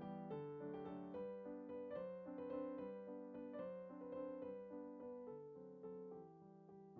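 Soft background piano music, a slow melody of single sustained notes over a simple accompaniment.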